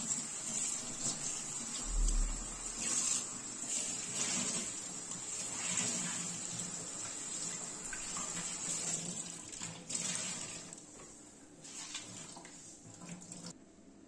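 Kitchen tap running onto a cloth as it is rinsed and squeezed in the sink, the water hissing and splashing in uneven surges. It grows quieter after about ten seconds and stops abruptly just before the end.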